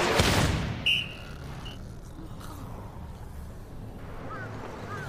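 A loud burst of noise at the start, then a referee's whistle blown once, short and high, about a second in. After that it is quiet, with a few faint bird-like chirps near the end.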